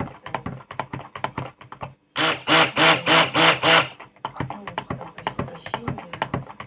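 Stick blender in a plastic cup of soap batter: rapid clicking and tapping as the blender head is worked around the cup, broken by one loud burst of the blender motor running for about two seconds, its whine wavering. This is the batter being blended toward trace.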